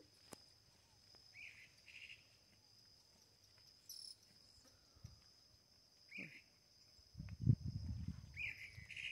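Insects chirring steadily in a high band, with a few short chirps scattered through. Near the end a low rumble lasts about two seconds.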